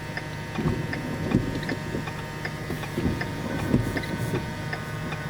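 Car interior while driving: a steady low road and engine rumble, with a faint, rapid ticking of about three ticks a second.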